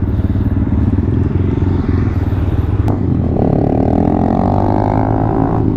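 Motorcycle engine running on the move, with a sharp click about three seconds in, after which its pitch climbs steadily as it speeds up.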